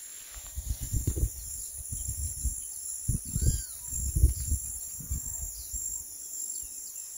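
Outdoor ambience: a faint steady high insect buzz, with a couple of short arching bird chirps about three and a half seconds in. Irregular low buffeting on the microphone runs throughout.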